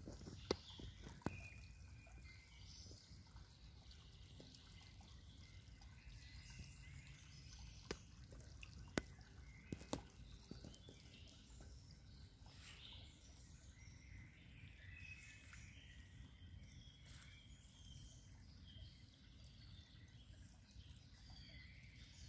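Near silence: faint outdoor ambience with a low rumble, a handful of sharp clicks in the first ten seconds, and faint high chirps later on.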